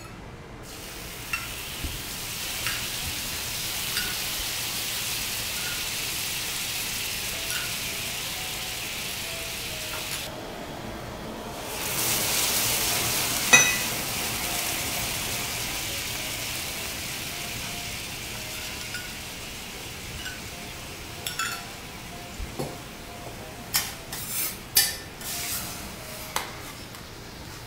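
Crêpe Suzette sauce sizzling on a hot steel teppanyaki griddle, louder from about twelve seconds in when the pan is flambéed. Near the end, a metal spatula clinks and scrapes against the griddle several times.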